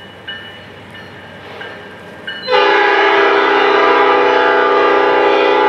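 Locomotive air horn of BC Rail 4648 sounding one long, loud chord that starts about halfway through. Before it, a bell dings steadily about every two-thirds of a second.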